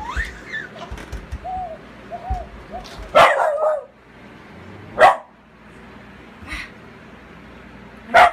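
A pet dog barking in play: a few sharp single barks a second or two apart, the first about three seconds in, with soft whines before it.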